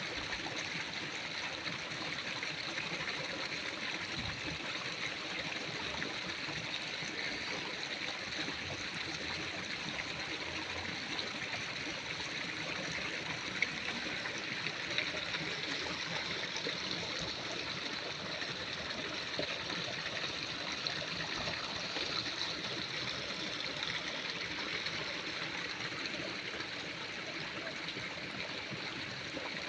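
Steady rush of running water, like a stream, unchanging throughout, with a faint tick about halfway through.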